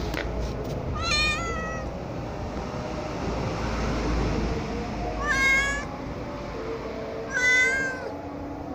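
Domestic cat meowing three times, each call short, under a second long.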